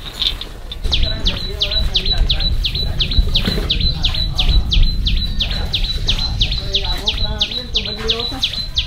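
A bird calling a fast, even series of sharp high chirps, each falling in pitch, about three or four a second, starting about a second in, over a low rumble.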